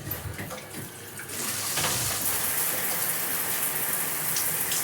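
Shower running: water spraying from a double shower head setup, fed through a diverter valve, growing louder about a second in and then running steadily.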